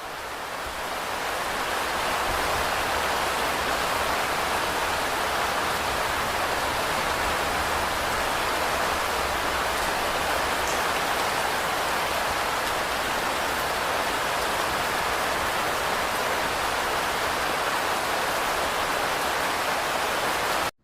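Steady heavy rain, an even hiss of falling rain, fading in over the first couple of seconds and cutting off suddenly at the end.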